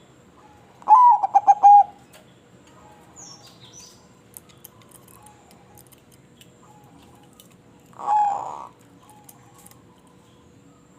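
Zebra dove (perkutut) cooing. About a second in comes a loud phrase of about five quick rhythmic notes, and about eight seconds in one shorter single call. Fainter coos and a few high chirps from other birds sound in between.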